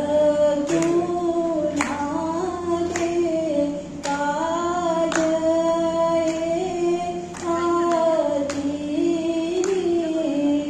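Two women singing together over a PA system, a slow melody of long held notes, with a sharp tap about once a second under a steady low hum.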